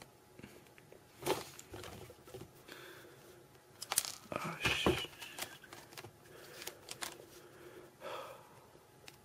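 Irregular rustling and small clicks from fingers and pliers working a wire and a small metal pin into a connector close to the microphone. The handling is busiest and loudest about four to five seconds in.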